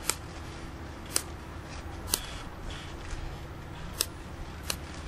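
Five short, sharp clicks about a second apart from handling multimeter test probes and their clips, over a low steady background rumble.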